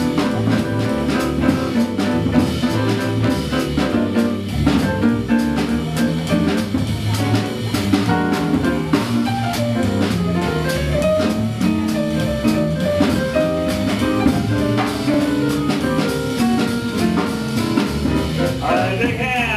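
Live small swing jazz band playing: saxophone, upright bass, piano and drum kit, with a steady drum beat.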